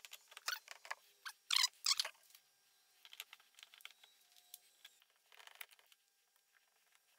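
Light clicks, taps and scraping of small metal parts and hand tools being handled while an angle grinder's gear head is reassembled, with a few louder clicks about one and a half to two seconds in.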